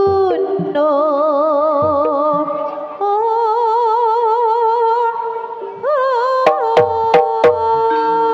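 A female Javanese singer (sinden) holds long notes with a wide, slow vibrato and sliding pitch in Banyumasan style. Kendang drum strokes come in with four sharp hits about two-thirds of the way through, then one more near the end.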